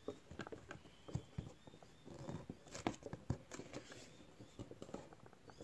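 Thick cardboard pages and flaps of a lift-the-flap board book being handled and turned: faint, irregular soft taps and rustles.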